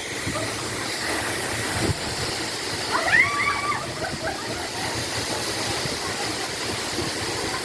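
Waterfall with a steady rush of falling water. A brief voice cuts through about three seconds in.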